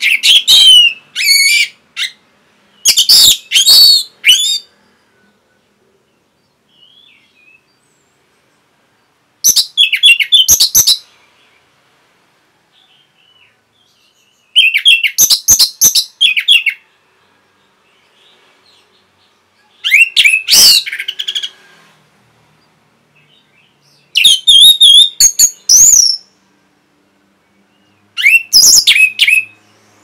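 Orange-headed thrush singing: seven short loud phrases of rapid, varied high notes that slide up and down, each a second or two long, with pauses of a few seconds between them.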